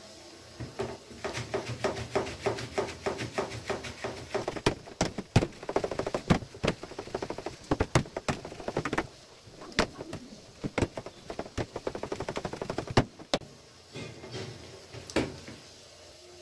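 A hand beating thick wheat-flour-and-jaggery gulgula batter in a stainless steel bowl: quick wet strokes, about three or four a second, with a few sharper clicks among them. The beating stops a couple of seconds before the end.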